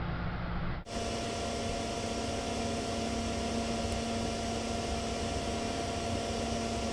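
Steady electrical hum, two constant tones over an even hiss, with no speech. It cuts in abruptly about a second in and cuts off abruptly near the end.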